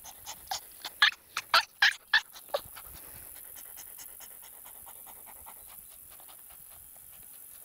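Laika puppy panting fast with its tongue out: short, quick breaths at about five a second, loudest over the first two and a half seconds, then fainter.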